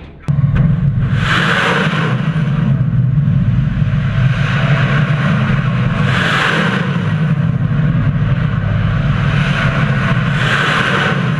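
A loud, steady engine-like rumble that cuts in abruptly just after the start, with a rushing hiss that swells and fades about every four to five seconds.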